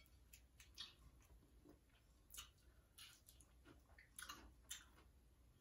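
Faint chewing of food close to the microphone: soft, irregular crunches and wet mouth clicks that come a few at a time.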